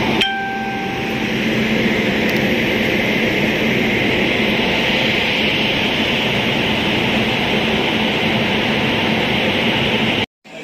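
An express train's electric locomotive and then its coaches rolling past close by along the platform, a steady rushing rumble of wheels on rails. A brief tone sounds for about a second at the start.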